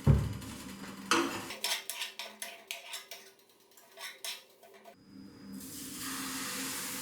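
A thump and a run of metal clinks and knocks of utensils against a frying pan, then, about six seconds in, a steady sizzle begins as pancake batter goes into the hot, oiled pan.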